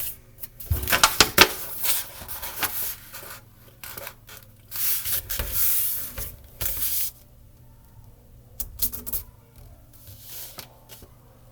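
A sheet of paper being folded and creased by hand: crisp rustling and crinkling, with a few sharp snaps about a second in and longer swishing strokes between about 3 and 7 seconds in as the fold is pressed flat.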